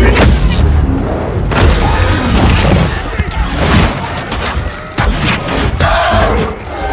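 Film action-scene soundtrack: repeated heavy booms and crashing impacts over music, as monsters tear through a camp.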